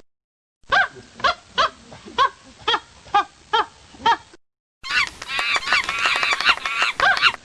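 Monkey calls: a string of short pitched hoots, about two a second, then after a brief gap a denser stretch of many overlapping calls.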